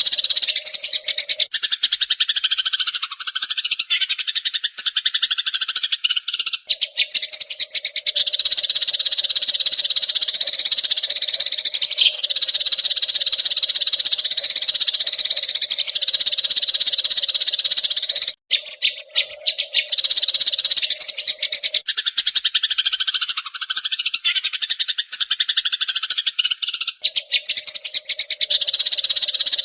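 Eurasian tree sparrows chirping rapidly and continuously, many high chirps running together, over a steady low drone that drops out for a few seconds at a time.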